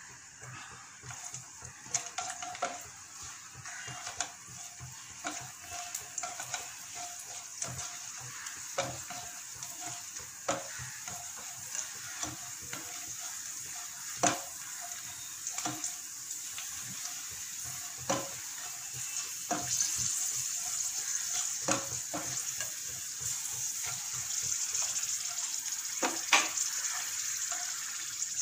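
Cashews frying in hot ghee in a nonstick pan: a steady sizzle that slowly grows louder, under scattered scrapes and knocks of a plastic slotted spatula stirring them against the pan.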